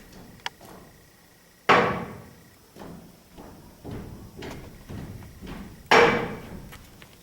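Knocks and taps on a table with glasses and cutlery: a light, ringing tap near the start, then two loud bangs about four seconds apart with softer knocks between them.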